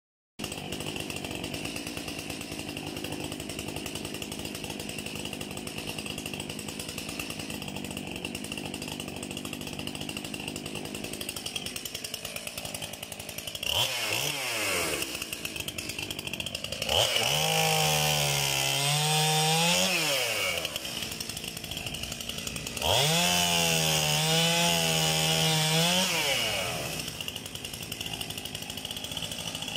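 STIHL MS 271 chainsaw's 50 cc two-stroke engine idling steadily, then revved up to high speed twice for about three seconds each, dropping back to idle after each. It starts to rev up again at the end.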